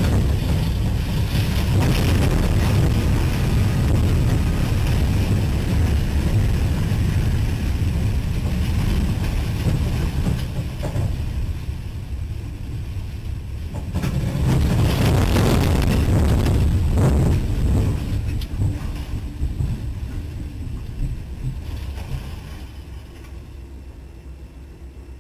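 Heavy rumble and roaring noise from a train wreck, recorded by a camera in the locomotive cab. It eases around twelve seconds in, swells again, then fades over the last few seconds.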